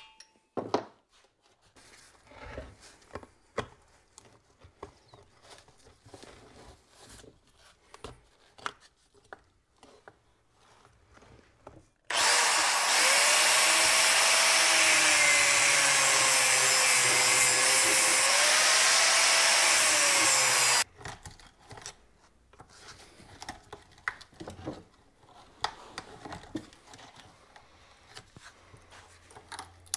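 Angle grinder cutting through a rusted driveshaft center support bearing for about nine seconds around the middle, starting and stopping abruptly, its whine dipping and recovering under load. Before and after, light metal clicks and scraping of hand tools prying at the bearing.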